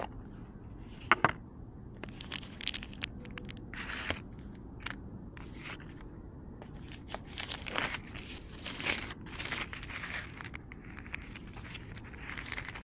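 A paper-wrapped cardboard box being unwrapped and opened by hand: irregular crinkling, tearing and rustling of paper, with two sharp clicks about a second in. The sound cuts off abruptly just before the end.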